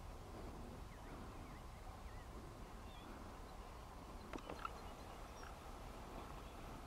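Faint outdoor field ambience: a steady low wind rumble on the microphone with a few faint bird chirps, and two sharp clicks about four and a half seconds in.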